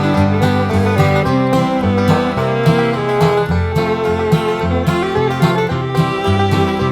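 Background music: an upbeat, steady-rhythm tune with plucked guitar in a bluegrass or country style.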